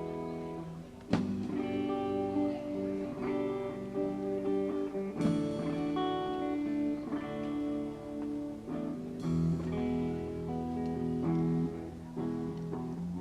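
Live acoustic guitar playing an instrumental passage with no singing: picked chords with a hard strum about every four seconds.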